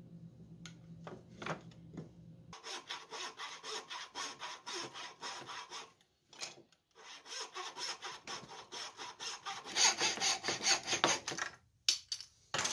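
Shop-made bow saw with a blade salvaged from a broken bandsaw blade rough-cutting a wooden plane-tote blank, in steady back-and-forth strokes. Two runs of sawing with a short pause about six seconds in; it is loudest near the end, then stops.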